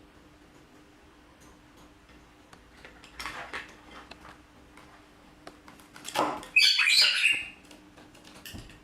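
Animal calls: a short one about three seconds in, then a louder, longer, high-pitched one from about six seconds in.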